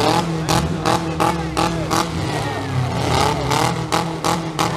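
Demolition derby cars' engines running with a steady low rumble, under an irregular run of sharp knocks and metallic clatter.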